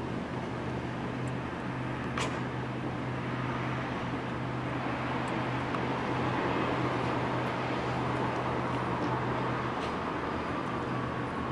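City street traffic noise: a steady rush of passing cars over a constant low hum, swelling a little around the middle, with a faint slowly falling whine in the second half. A single sharp click comes about two seconds in.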